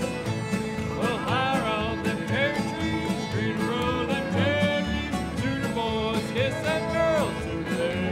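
Old-time string band playing a contra-dance tune: a fiddle melody with slides, over a steady rhythm of guitar and bass.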